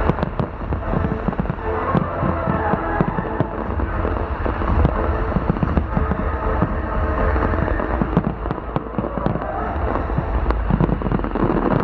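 Fireworks display: a rapid run of bangs and crackles over a deep rumble, with the show's music playing underneath.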